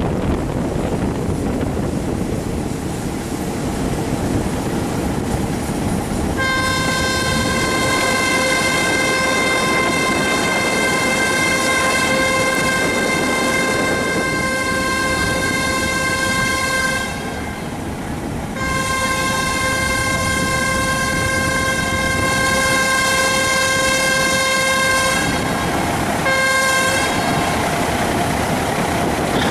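Train horn sounding one steady note in three blasts: a long one of about ten seconds, a second of about six seconds after a short break, then a brief one near the end. Underneath is the steady running noise of the moving train.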